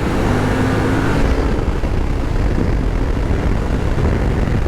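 Suzuki V-Strom 800DE's parallel-twin engine running steadily under way, with heavy wind noise over the microphone.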